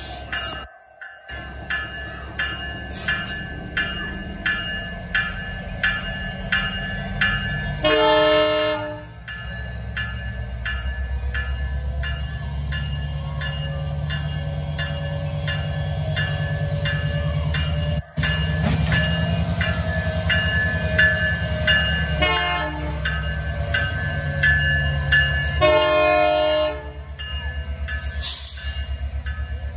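Canadian Pacific diesel locomotive pulling out: its bell rings steadily about twice a second, the horn sounds three times, and the diesel engine throttles up from about a third of the way in.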